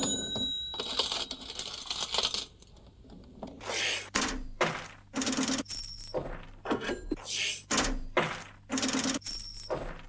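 Cash register and coin sound-effect tape loop: coins clinking and rattling with a till bell ringing, the short sharp sounds repeating in a steady, looping rhythm.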